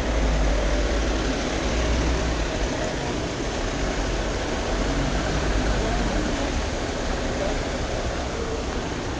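Steady street noise: a continuous hiss with a low rumble that swells and eases.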